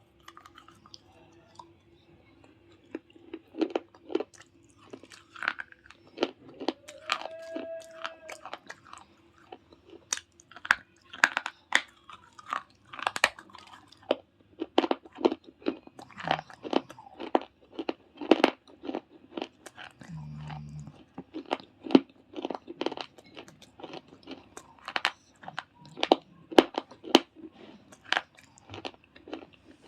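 Close-up crunching and chewing of baked clay pot pieces and slate pencil: a long run of sharp, brittle bites and crunches at an uneven pace.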